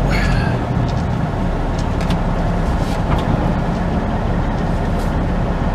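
Semi truck's diesel engine running and road noise as heard inside the cab while the truck drives slowly, a steady low rumble with a few faint clicks.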